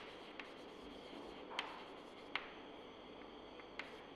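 Chalk writing on a blackboard: faint scratching of the chalk, with several sharp taps as its tip strikes the board.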